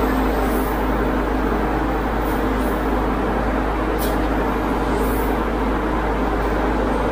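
Paint-fume extractor fan running steadily, a constant rushing hum, clearing solvent fumes. A few brief high hisses of the airbrush spraying are laid over it.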